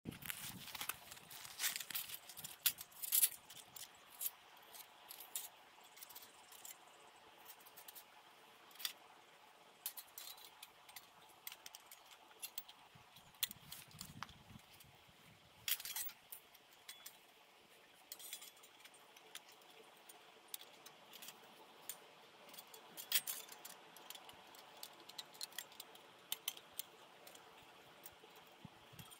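Sheet-metal panels of a folding camp wood stove clinking and rattling as they are handled and fitted together: irregular metallic clicks, in clusters, loudest in the first few seconds.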